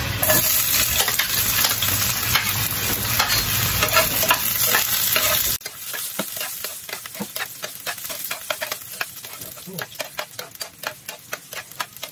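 Chopped garlic sizzling in hot oil in a frying pan: a loud, steady sizzle that drops off suddenly about halfway through. After that comes a quieter sizzle, with the spatula scraping and tapping the pan many times as the garlic is stirred.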